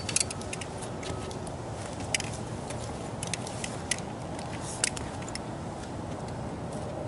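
Scattered sharp clicks and taps of fishing tackle being handled on a boat while a fish is unhooked: a quick cluster at the start, then a few single ones, the loudest about five seconds in, over a steady low background rush.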